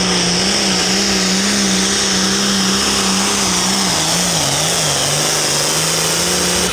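John Deere 4455 pulling tractor's six-cylinder turbo-diesel engine running flat out under load while dragging the pulling sled, a loud steady drone. Its pitch wavers slightly and dips briefly just past the middle before recovering.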